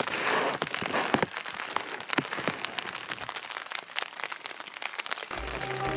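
Rain falling on a tent's fabric, heard from inside: many separate drops striking in quick, irregular ticks over a light hiss. Background music comes in near the end.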